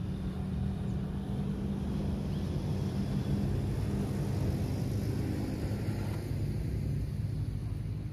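Low, steady engine rumble that swells over the first few seconds, holds, then begins to ease near the end, like a motor vehicle or aircraft passing at a distance.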